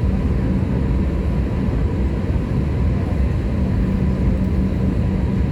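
Airbus A321's jet engines heard from inside the cabin: a steady deep rumble with thin steady whine tones above it.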